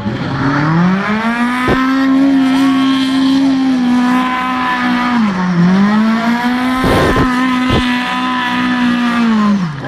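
Lada 21074 rally car's four-cylinder engine held at high revs while the car spins in a smoking doughnut, its rear tyres spinning and squealing. The revs sag briefly about halfway, pick up again and drop near the end, with a few sharp cracks.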